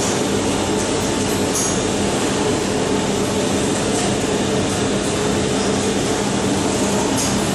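Steady machinery din of a garment-factory workroom: a constant even rumble with a low hum running through it.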